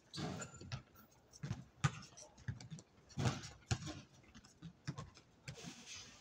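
Basketball game in play on an outdoor hard court: scattered thuds and scuffs from the ball and the players' shoes, with louder scuffing flurries near the start, about three seconds in and near the end.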